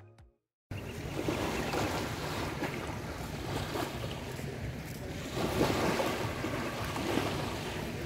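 Seaside ambience of surf washing, with wind buffeting the microphone; it starts abruptly about a second in and then runs steadily.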